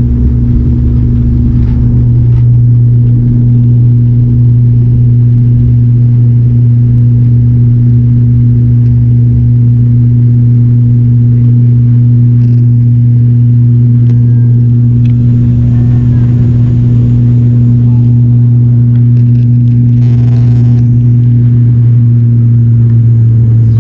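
ATR turboprop's engines and propellers at takeoff power, heard from a cabin seat beside the propeller: a loud, steady drone with a deep hum and a second tone above it, through the end of the takeoff roll and the initial climb.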